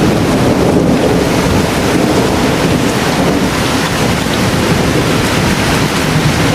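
Heavy rainstorm, a loud steady rushing of rain.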